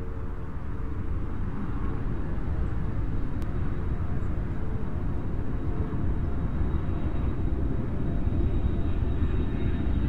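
Airplane flying overhead: a steady low rumble of engine noise that slowly grows louder, with a faint thin high whine coming in about two-thirds of the way through.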